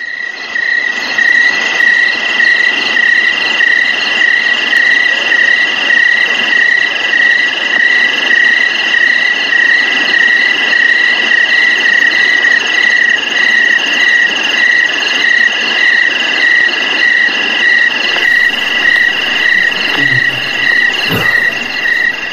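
Loud, steady insect chirring, a pulsing trill like a chorus of crickets, going on without a break and stopping abruptly.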